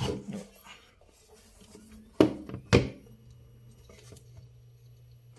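Handling knocks from a power cable being plugged into the back of a CCTV DVR: a clatter at the start, then two sharp knocks about two seconds in. A low, steady hum sets in after them.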